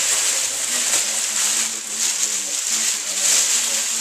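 Clear plastic bag crinkling and rustling right at the microphone as a child handles it: a steady, loud crackling rustle.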